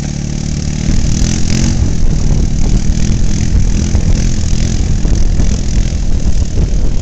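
ATV engine idling, then from about a second in running louder and rougher at higher revs as it pulls away.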